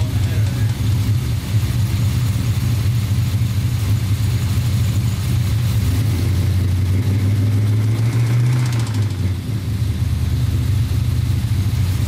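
Small block Chevy 350 V8 running with a knock from a spun number 3 rod bearing. The engine speed rises gradually from about six seconds in and drops back to idle near nine seconds.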